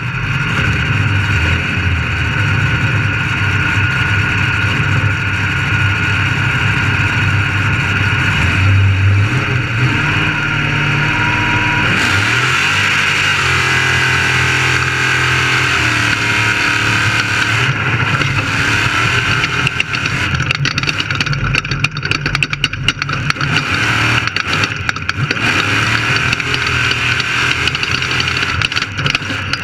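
Off-road race car's engine running hard, its pitch stepping up and down partway through as it changes speed, over a steady rush of wind and road noise, with rough rattling knocks in the second half.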